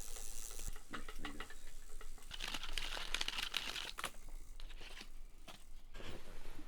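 Rustling and crinkling handling noises with scattered small clicks, denser about halfway through.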